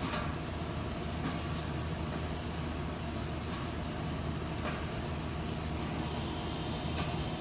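Commercial refrigerator's compressor and condenser fan running with a steady hum; the compressor is running.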